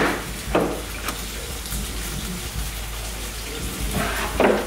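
Someone rummaging in a kitchen drawer: a couple of short clattering knocks right at the start, then a louder clatter about four seconds in as things in the drawer are shifted and a wooden cutting board is pulled out.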